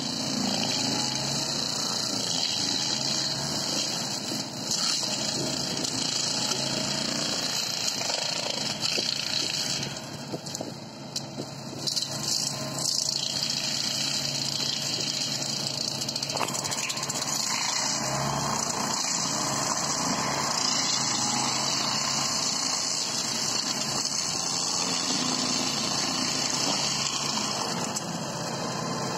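REMET F3-175 tractor-mounted forestry mulcher running, its rotor shredding willow brush and branches over the steady drone of the tractor engine under load. The noise drops briefly about ten seconds in, then comes back up.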